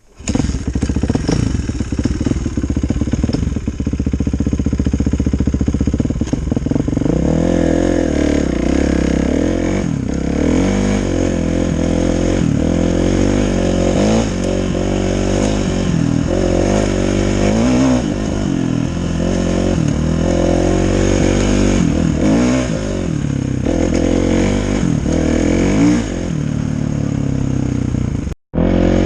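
Kawasaki KX450F's single-cylinder four-stroke engine running, steady for the first few seconds, then revved up and down again and again as the dirt bike is ridden, its note rising and falling every second or two. The sound cuts out for a moment near the end.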